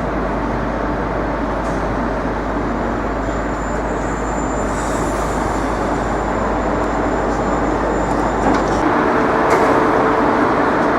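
Steady city street din: traffic and machinery running without a break, with a deep rumble underneath that cuts off suddenly near the end.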